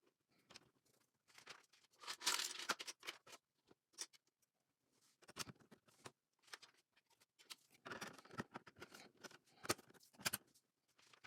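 LEGO plastic pieces being handled and pressed together: scattered sharp clicks and rustling, busiest about two seconds in and again from about eight to ten seconds in.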